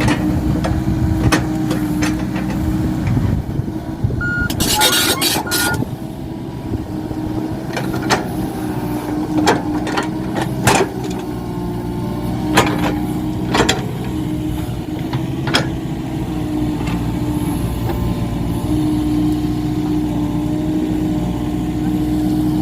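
Komatsu PC45 mini excavator's diesel engine running steadily while working, with sharp knocks and clanks every second or two. Three short beeps come about four seconds in.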